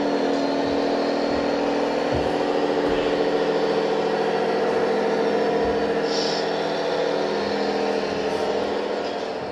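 Radio-controlled scale tractor-trailer truck driving slowly, with a steady engine sound running throughout.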